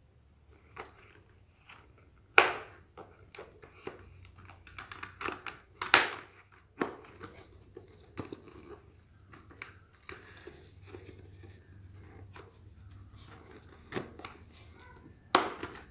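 Handling noise from a full-face helmet's foam liner being pressed into the shell: fabric-covered foam rustling and rubbing against the plastic, with irregular sharp clicks and knocks, the loudest about two and a half and six seconds in.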